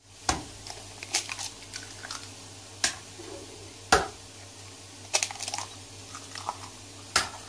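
Eggs being cracked against the rim of a ceramic bowl: a series of sharp taps and shell cracks, spaced irregularly about a second apart, over a low steady hum.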